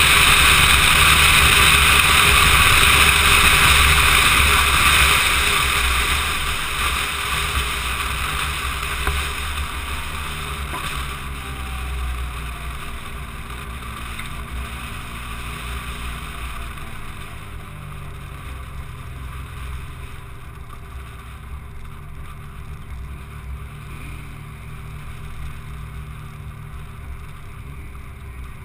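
Car at speed heard from inside the cabin: low engine drone under loud wind and road noise, which die away over ten seconds or so as the car slows.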